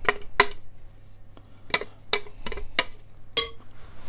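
A blender jug knocked against the rim of a ceramic mixing bowl to shake out the sticky blended mixture: about seven sharp knocks at uneven spacing, the last and loudest near the end.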